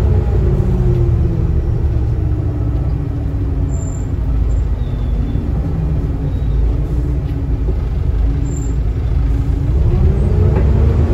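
Volvo B7TL double-decker bus's six-cylinder diesel heard from the top deck, over a steady low rumble: the engine note falls as the bus eases off, stays low for several seconds, then rises again near the end as it picks up.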